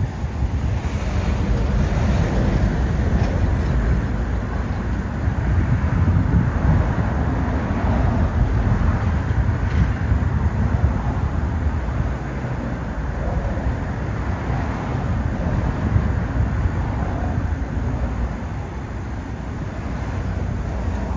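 Steady low outdoor rumble that wavers in strength, with no single clear source standing out.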